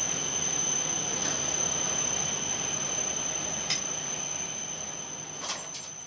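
Interior running noise of an E5 series Shinkansen on its final approach to the Tokyo terminal: a steady rumble and hiss with a steady high whine, a few short clicks, fading out near the end.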